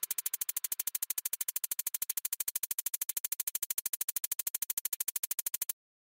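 A rapid, even electronic ticking, about ten sharp pulses a second at a steady level, that cuts off suddenly near the end.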